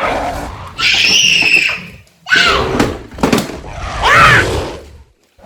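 Children screaming in several loud, high-pitched bursts, with short pauses between them and a couple of sharp clicks in the middle.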